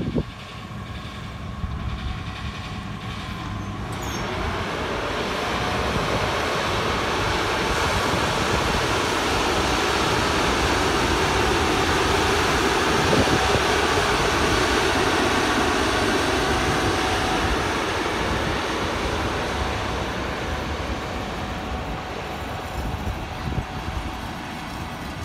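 ČS4t electric locomotive and its passenger coaches rolling past at close range. The locomotive's steady equipment hum and wheel-on-rail running noise build up over the first several seconds and are loudest around the middle as the coaches pass, then ease off toward the end.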